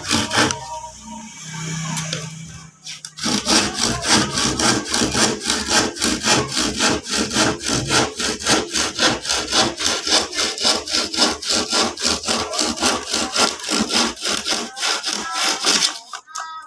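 Hand saw cutting a wooden board, in even back-and-forth strokes about three times a second, after a few seconds of steady low hum; the sawing stops just before the end.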